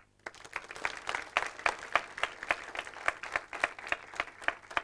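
Audience applauding: many hands clapping, starting a moment in.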